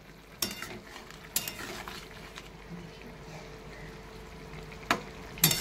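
A metal spatula stirring a kadai of yam curry, tapping and scraping against the pan about five times, over a faint simmer.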